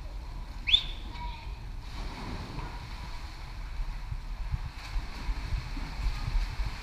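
Indoor swimming-pool ambience: a steady low rumble with scattered low knocks and water sounds, and a short rising squeak under a second in.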